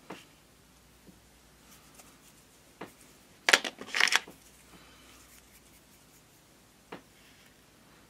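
Handling noise from a small tube and small parts on a workbench: a few light taps, and a short cluster of sharp clicks and rattles about three and a half seconds in, which is the loudest part.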